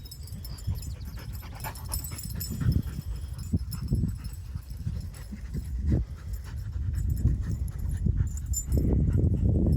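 Labrador retriever panting, with scattered knocks and a low rumble that grows louder near the end.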